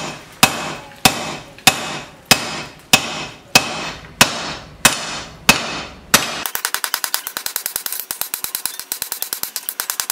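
Straight peen hammer striking red-hot knife steel on an anvil to set down the tang: about one and a half blows a second, each with a short ring after it. About six seconds in, the blows give way to a fast, even run of lighter taps, about ten a second.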